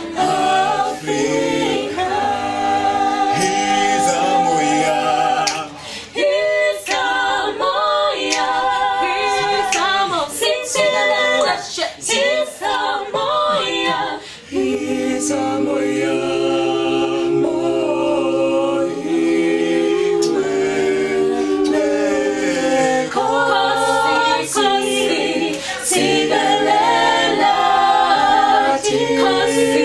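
Small mixed choir of men's and women's voices singing a cappella in harmony, with long held chords around the middle.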